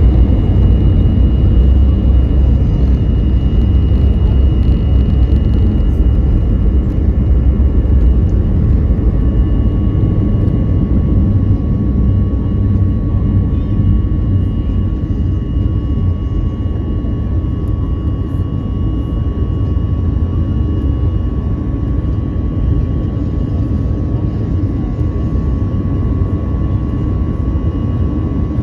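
Airliner cabin noise: a steady, loud engine and airflow rumble with a couple of steady whining tones on top, easing slightly toward the end.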